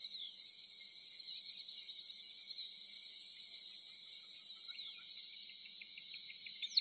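Faint, steady insect chorus: a high continuous buzzing trill, with a thinner, higher whine that drops out about five seconds in. A few brief chirps come near the end.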